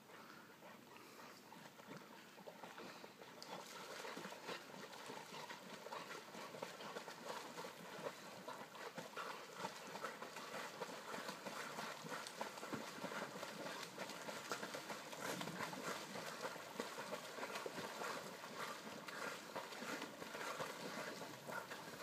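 Faint, irregular splashing of two puppies paddling and wrestling in lake water, getting louder and busier a few seconds in.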